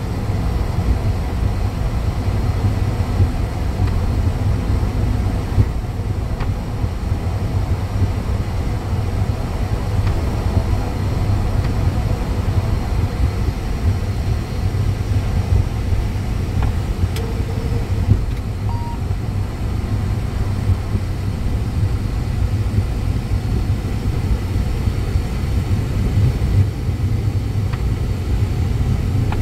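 ATR 72-500's twin turboprop engines and propellers running steadily, heard inside the cockpit as a loud, even low rumble.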